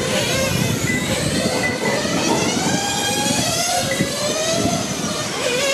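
Several radio-controlled racing motorcycles' motors whining together, their overlapping pitches gliding up and down as the bikes speed up and slow down.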